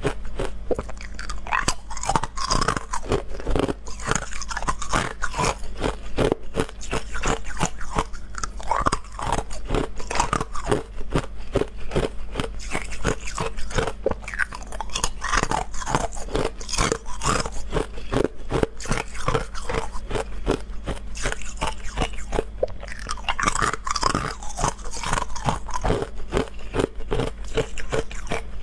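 Hard frozen ice cubes being bitten and chewed: a dense, continuous run of sharp cracks and crunches.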